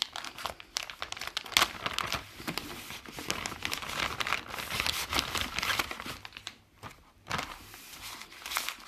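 Clear plastic bag crinkling as it is handled and opened to get at the samples inside, in a dense run of irregular crackles with a short lull about two-thirds of the way through.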